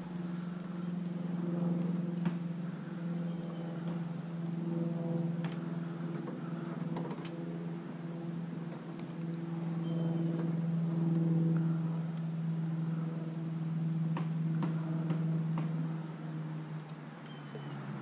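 A steady low motor hum with a few overtones, swelling and easing a little in level, with scattered light clicks and ticks over it.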